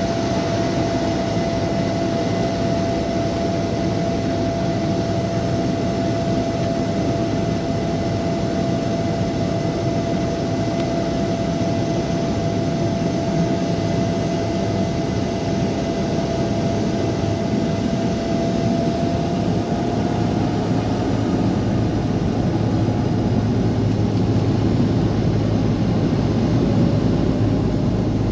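Steady, loud drone of a large engine with a constant low hum and a held whine that shifts slightly in pitch about twenty seconds in.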